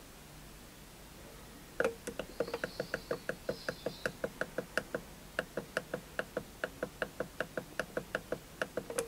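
Keypad button on an XSY-AT1 variable frequency drive pressed over and over, a quick run of small clicks about five a second starting near two seconds in, stepping the jog forward frequency setting down toward 10 Hz.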